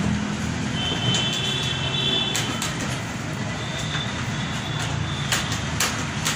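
Steady low rumble of passing road traffic, with a few sharp clicks and faint high-pitched tones coming and going.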